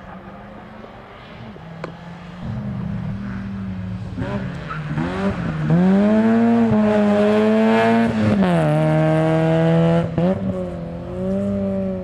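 Rally car at speed, its engine revving hard with the pitch dipping sharply a few times along the way. It grows louder from a couple of seconds in, is loudest through the middle, then eases off near the end.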